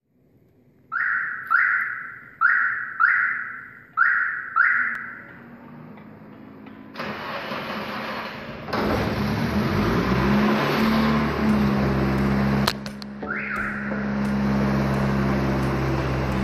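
A chime dings six times about half a second apart. Then the Nissan Silvia S14's engine starts, catching just before the nine-second mark and running steadily.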